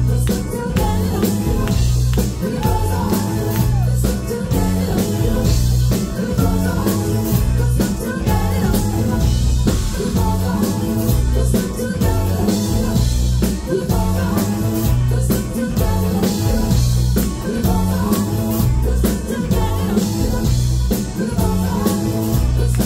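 Loud live band music: vocals sung into a microphone over a drum kit and heavy bass, with a steady beat.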